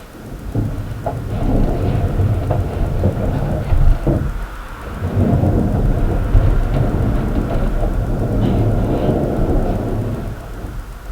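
Upstairs neighbours' noise coming through the ceiling: a loud, low rumble with a few knocks. It eases briefly about four seconds in and fades near the end.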